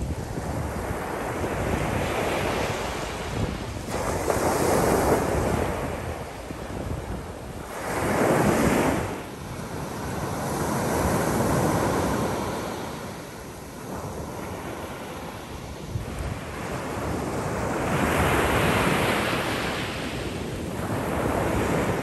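Sea surf: small waves breaking and washing up a sandy, pebbly beach, swelling and ebbing in surges every few seconds, the loudest about eight seconds in.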